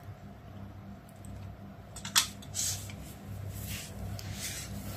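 A few short rustles and scrapes as hands work the rice cooker's wiring and white plastic housing, over a steady low hum.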